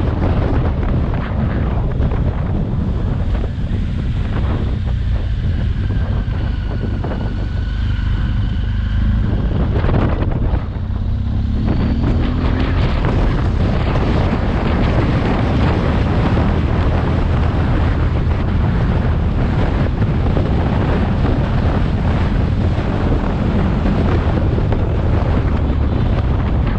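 Wind buffeting the microphone of a moving motorcycle, over the low drone of its engine and tyres. The wind eases for a few seconds partway through, then the engine note rises briefly as it speeds up again.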